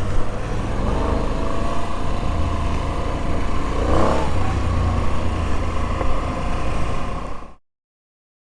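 Moto Guzzi V85's air-cooled transverse V-twin running at idle, blipped once about halfway through, its pitch rising and falling back. The sound cuts off abruptly about a second before the end, leaving silence.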